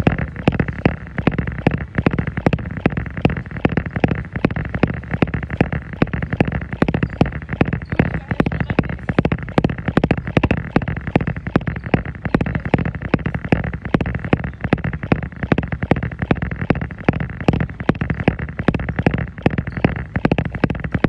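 Jogging footfalls pounding on a treadmill belt in an even rhythm of nearly three steps a second, over the treadmill's steady running noise.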